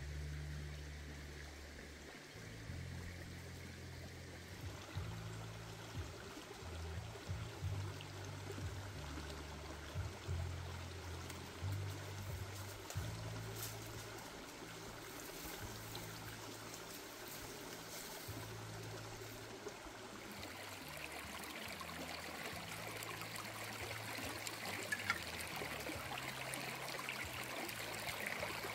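Shallow rocky stream running and trickling, growing a little louder about two-thirds of the way in, over a low background music line.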